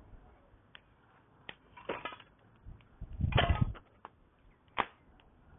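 Campfire crackling, with scattered sharp pops from the burning wood. About three seconds in comes a louder, longer crunching burst, and a single loud pop follows a second later.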